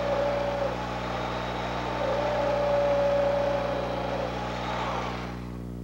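Electric drill running as it bores a hole through a wooden 1x2 brace, a steady whine; it stops about five seconds in.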